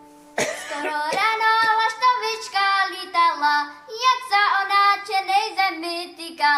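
A young girl singing a Moravian Slovácko folk song solo in Czech dialect, starting about half a second in, with no instruments heard under her voice.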